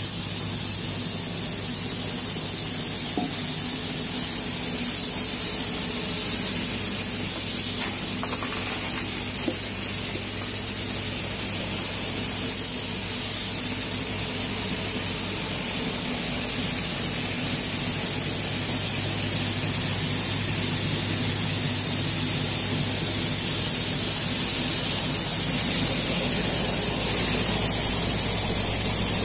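Paddy winnowing machine running, its fan blowing a steady rushing hiss of air and chaff as paddy pours through, over a steady low hum. It grows slightly louder toward the end.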